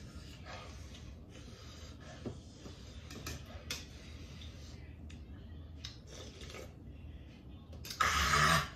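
Quiet eating sounds: a spoon and fingers working in a ceramic bowl, with a few light clicks now and then. Near the end comes a short, loud, breathy gasp from the eater.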